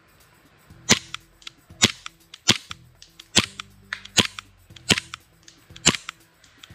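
Novritsch SSP18 gas blowback airsoft pistol firing single shots, seven sharp pops about one a second, each the gas shot and the slide cycling.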